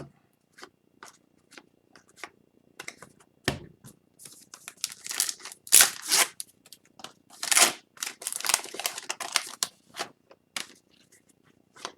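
Upper Deck Series 2 hockey card pack wrapper being torn and crinkled while cards are handled and flicked through: scattered light clicks at first, then a few seconds of crinkling and tearing in the middle.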